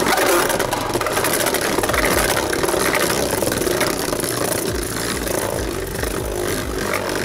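Right Artemis and Emperor Forneus Beyblade tops spinning together in a plastic stadium: a steady whirring, grinding hiss as their spinning tips run on the stadium floor, dotted with many small clicks and rattles as the tops bump and scrape. It gets slightly quieter toward the end.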